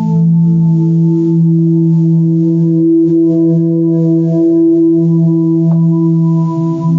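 Slow instrumental music of long held chord tones, the chord shifting to new notes near the end.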